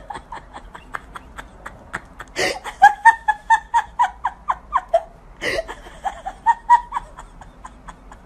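A person laughing in quick, repeated bursts, about three or four a second, with two louder, sharper noises about two and a half and five and a half seconds in.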